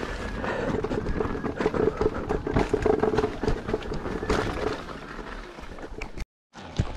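Electric unicycle riding over a rough dirt trail: irregular knocks and rattles over a low rumble, with a faint steady hum in the first few seconds.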